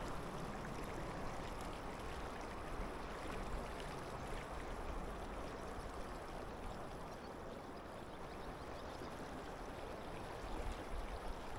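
Steady rush of river current flowing over a shallow riffle.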